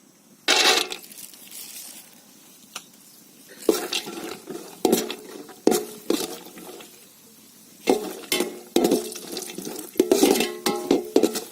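A metal spoon stirring and scraping in a metal cooking pan, with irregular knocks and clinks that ring briefly, coming thicker near the end.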